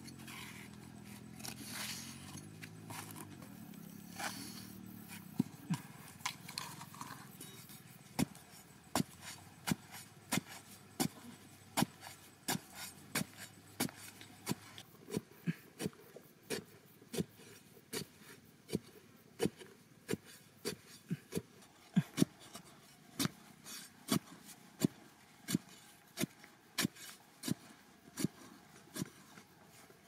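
A metal digging bar striking and loosening dry, sandy soil over and over, about two strikes a second, starting about five seconds in.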